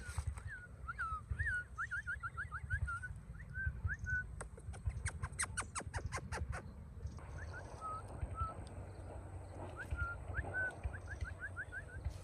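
Parrot chirping: a string of short whistled notes, each rising or falling in pitch, with a quick run of sharp clicks in the middle. A steady low rumble lies underneath.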